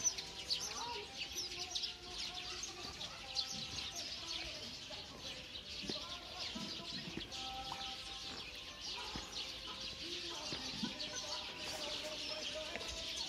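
Many aviary birds chirping over one another in a dense, continuous chorus of short high chirps, with occasional lower calls mixed in.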